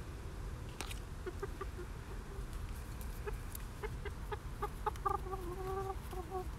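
A chicken clucking: a run of short clucks, then one longer, drawn-out call about five seconds in, over a low steady rumble.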